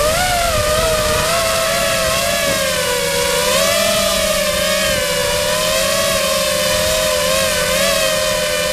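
Quadcopter's electric motors and propellers whining, heard from a camera on the craft, the pitch wavering up and down with throttle as it descends to land.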